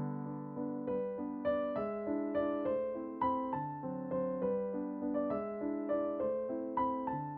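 Soft, slow background piano music: single notes and chords, each struck and left to fade.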